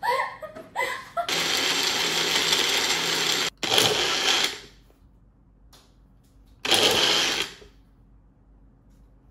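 Personal push-down blender run in short pulses: a run of about two seconds, a split-second stop, another second, then one more one-second pulse a couple of seconds later, each cutting off sharply. It is blending frozen banana with chunks of chocolate that have not yet broken down.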